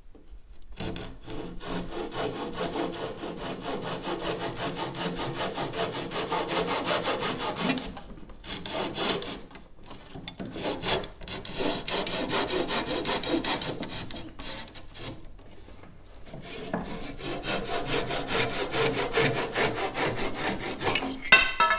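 Japanese pull saw cutting across a wooden boat rail by hand, quick back-and-forth strokes in three runs broken by short pauses, trimming the rail end to length.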